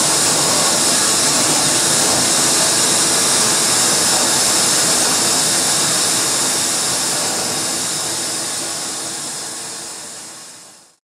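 Harsh noise music: a dense, steady wall of hiss-like electronic noise from a microphone fed through a chain of effects pedals. It fades out over the last several seconds and cuts to silence near the end.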